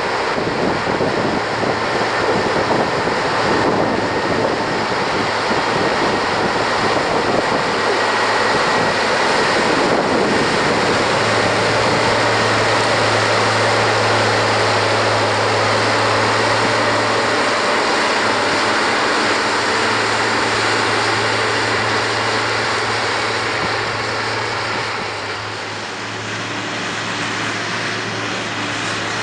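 Claas Atles 936 tractor's diesel engine running steadily under load while pulling a plough, with a constant low hum; it eases off slightly near the end.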